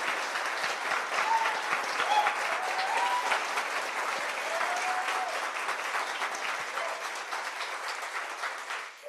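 Audience applauding, dense clapping with a few short voices calling out, thinning out and stopping just before nine seconds in.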